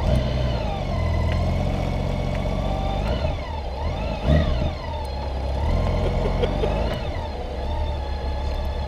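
Motorcycle engine running at low speed as the bike rolls slowly forward, its pitch rising and falling a few times with the throttle.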